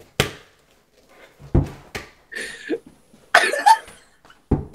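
A soccer ball bouncing off the floor and being played off the body indoors: a few separate dull thuds, one near the start, one about a second and a half in, and one just before the end.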